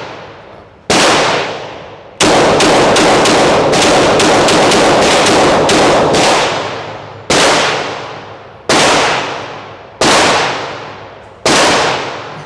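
Pistol gunfire, each shot echoing. One shot comes about a second in, then a fast string of about a dozen shots at roughly four a second, then four single shots about a second and a half apart.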